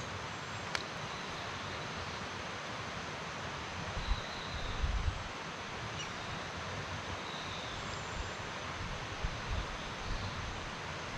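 Steady outdoor background hiss, with a sharp click about a second in and a few low thuds near the middle and again near the end.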